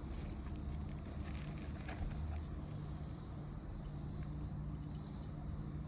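Outdoor insect chorus, a high buzz swelling and fading about once a second, over a steady low hum.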